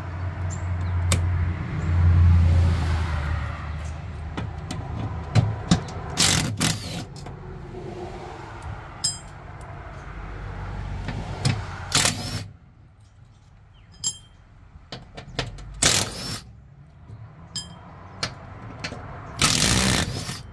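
A cordless power driver undoes the small bolts that hold a ride-on mower deck's spindle mounting plate. It whirs steadily for the first few seconds, then runs in several short, loud bursts, with light metallic clicks between them.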